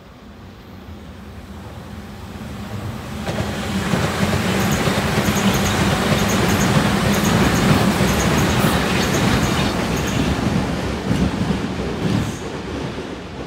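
A Tobu 100 series Spacia limited-express train in white-and-purple Miyabi livery passes, growing louder as it comes by, then fading as it runs away. While it is loudest there is a steady low hum and groups of sharp clicks from the wheels over the rail joints.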